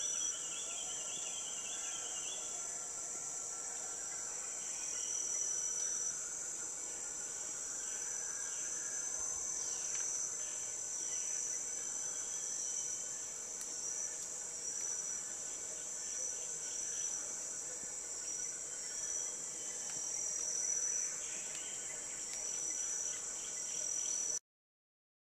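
Rainforest insect chorus: a steady, high-pitched shrill drone, with fainter repeated chirping calls coming and going.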